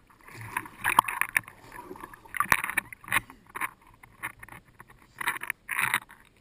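Lake water splashing and lapping close to the microphone as a swimmer strokes through it, in irregular bursts with a few sharp clicks.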